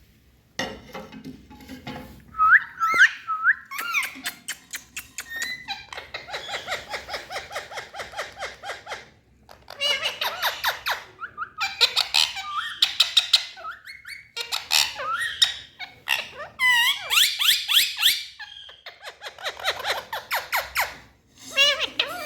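Indian ringneck parakeets calling: rapid runs of shrill, chattering squawks mixed with short whistled rising and falling notes, in several bursts with brief pauses between them.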